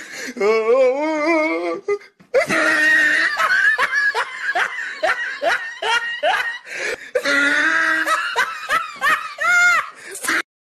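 Hearty laughter in long runs of rapid pulses, with short breaks about two seconds in and again about seven seconds in.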